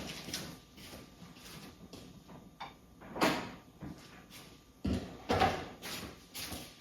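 Several short scraping knocks, a second or two apart, the loudest about three seconds in and a pair around five seconds in.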